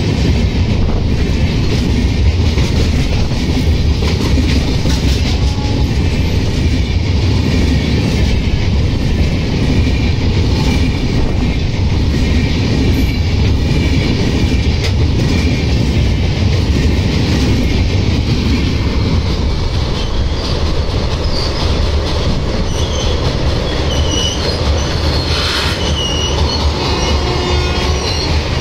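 LHB passenger coaches of an Indian express train rolling past close by: a loud, steady rumble and rattle of wheels on rail. In the later part thin, high wheel-squeal whines come in over the rumble.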